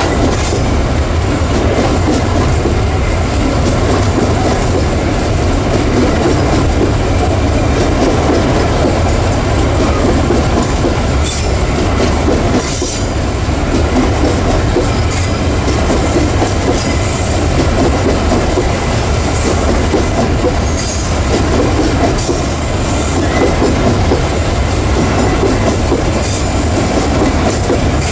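Coal hopper wagons of a long freight train rolling past on a curve: a steady heavy rumble of wheels on the rails, with brief high wheel squeals now and then.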